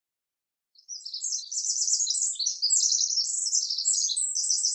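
Small birds chirping and twittering in a fast, continuous run of high notes, starting about a second in after dead silence.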